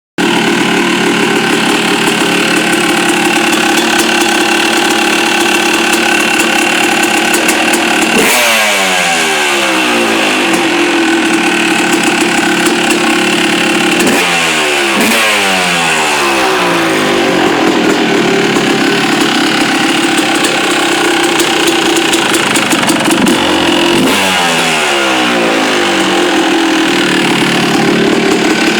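Yamaha YZ250 two-stroke single-cylinder engine idling, with three brief blips at intervals after which the revs fall back to idle. The owner is asking about a noise it makes at idle, which he tags as a knock.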